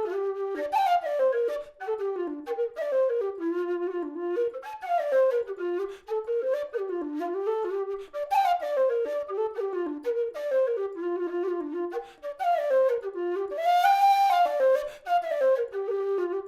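Aluminium Nightingale low whistle playing a tune, one melody line moving quickly from note to note, with a louder, held higher note near the end.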